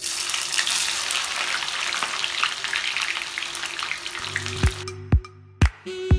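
Sliced onions frying in hot oil in a pan, with a loud, dense sizzle and crackle that starts abruptly and fades out about four and a half seconds in. Music with a steady drum beat takes over near the end.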